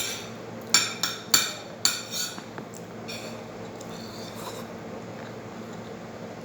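Cutlery clinking against a plate while eating: a quick run of sharp clinks in the first two and a half seconds, a few fainter ones after, then it goes quieter.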